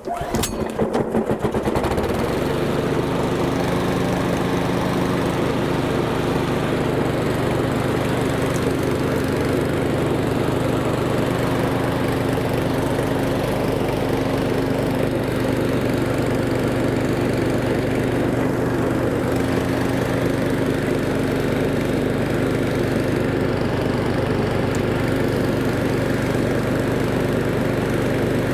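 PowerSmart 209cc overhead-valve lawn mower engine pull-started, catching right away and building up over about two seconds, then running steadily. It starts right up and sounds good: a freshly fuelled new mower starting easily after priming.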